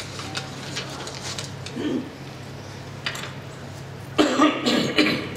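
A man coughing to clear his throat into his hand, close to a lectern microphone: a short run of coughs about four seconds in.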